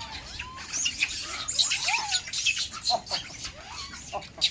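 Many short, high, squeaky animal calls that rise and fall in pitch, overlapping one another, with sharp clicks in between.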